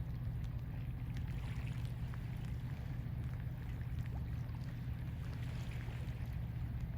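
Steady low rumble with water moving and trickling along the shore, and a few faint clicks.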